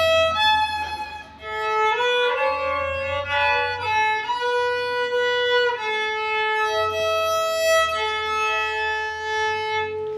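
A newly built rabeca, the Brazilian folk fiddle, being bowed in a slow melody of held notes. In the second half a lower note is held steadily while the upper notes change, two strings sounding together.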